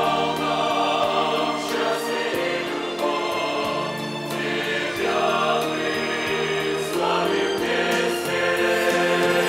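Mixed choir of men and women singing a hymn in Russian in several parts, with held chords that shift from one to the next.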